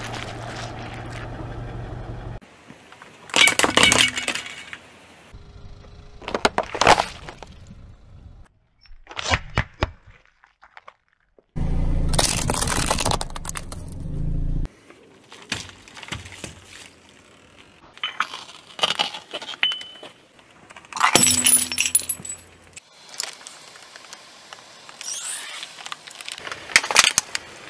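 A run of separate crushing events under a car tyre, mostly sharp cracking, snapping and crunching with short quieter gaps between them. A pineapple is squashed at the start, hard plastic cracks and snaps partway through, and near the end a pile of small balls is crushed. The car's low rumble sits under a couple of the crushes.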